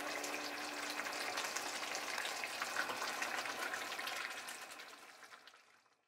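Spice curry with pork and vegetables sizzling and crackling in a frying pan as it is stirred with a wooden spatula; the sound fades out near the end.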